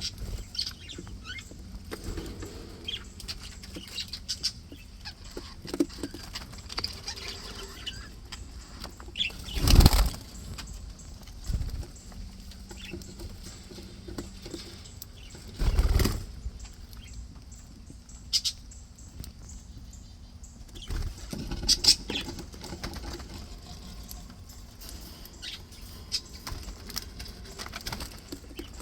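Pet budgies flapping their wings: two loud bursts of wing beats about six seconds apart, with faint chirps and small scratching clicks in between.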